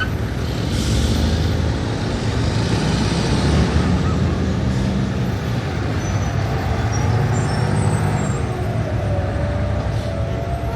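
Dense city street traffic: car, bus and truck engines running steadily in a continuous rumble, with a brief hiss about a second in.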